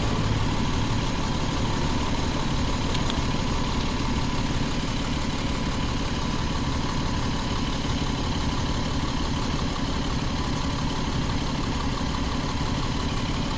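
2011 Jeep Wrangler's 3.8-litre V6 idling steadily. It is running with a dead ignition coil, the cause of its misfire.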